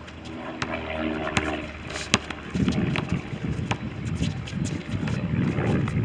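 A basketball bouncing on an outdoor asphalt court as a player dribbles, sharp separate knocks with shoe scuffs. From about two and a half seconds in, a low rumbling noise rises under the bounces and stays the loudest sound.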